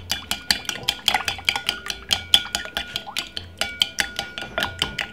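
Two eggs and a little milk being beaten with a metal utensil in a ceramic bowl: rapid, even clinking of metal against the bowl, about seven strikes a second, each with a short ring.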